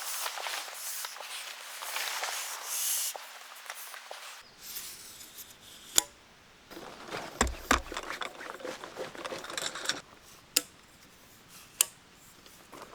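Rustling and handling noises for the first few seconds, then after an abrupt change a series of separate sharp clicks, with a low thump near the middle.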